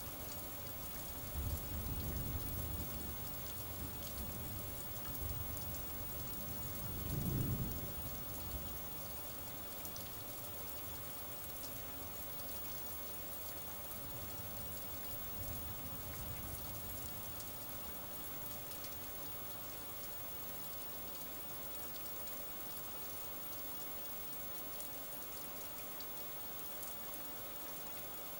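Steady rain falling, with a long low roll of thunder over the first several seconds that is loudest about seven seconds in, and a fainter rumble of thunder around the middle.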